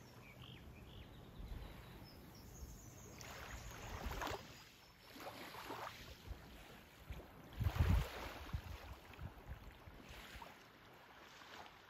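Small waves lapping softly on a sandy shore in gentle washes a couple of seconds apart, with wind rumbling on the microphone, loudest about eight seconds in.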